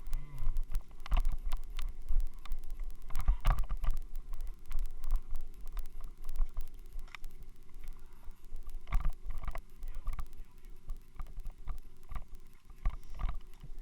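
Xiaomi Yi action camera rattling in its helmet mount: irregular knocks over a steady low rumble. The noise and vibration come from the helmet mount.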